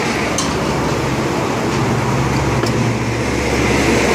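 Steady roadside background noise: traffic rumble with a low hum, and two light ticks, the first near the start and the second about two and a half seconds in.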